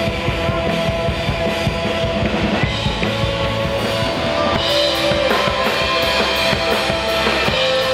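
Small rock band playing live on guitars and drum kit. In the second half a cymbal is struck about three times a second over the held guitar notes.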